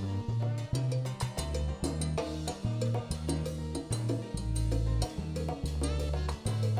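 Salsa band playing an instrumental passage between sung lines: a bass line under steady percussion strokes, with no singing.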